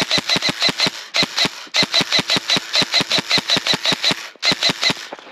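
Airsoft electric gun firing on full auto: a rapid clatter of about a dozen shots a second over the whine of its gearbox motor. It fires four bursts, the longest about two and a half seconds, with brief breaks between them.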